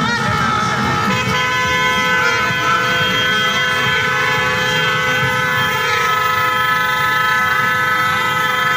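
Many motorcycle horns sounding together in a steady, unbroken chorus of held tones, some of them wavering up and down in pitch, over the running engines of a crowd of motorcycles.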